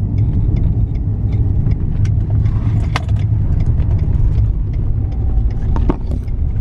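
Car driving: a steady low engine and road rumble heard from inside the cabin, with light clicks and rattles over it.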